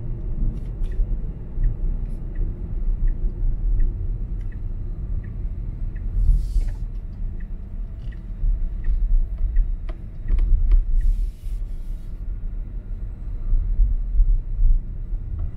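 Low road and tyre rumble heard from inside a Tesla Model Y's cabin as it turns off the road, with a turn signal ticking evenly about one and a half times a second. There are two brief hissing bursts, about six and eleven seconds in.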